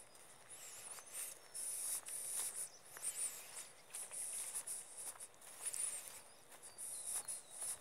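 Footsteps on an outdoor path, with high-pitched chirping and twittering of small birds in the surrounding trees.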